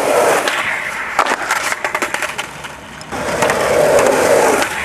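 Skateboard wheels rolling over a concrete sidewalk, with a cluster of sharp clacks from the board about a second in. The rolling dips briefly near the middle, then comes back louder.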